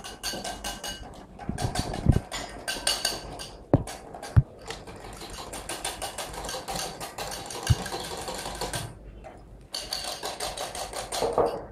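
Wire whisk beating rapidly in a glass mixing bowl: a fast, even run of clinks of the wires against the glass, with a few louder knocks and a brief pause near the end.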